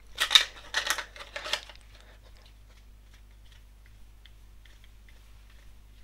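Leatherman Wave multi-tool being worked in and out of its tightened Kydex sheath: hard plastic scraping and clicking, three strong scrapes in the first couple of seconds, then only faint handling ticks.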